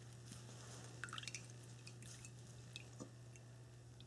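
Faint drips and small splashes of spinach juice falling from a squeezed cheesecloth bundle into a bowl of liquid, over a low steady hum.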